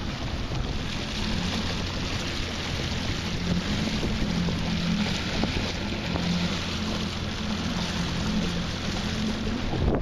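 Small outboard motor running steadily under way, with heavy wind noise on the microphone.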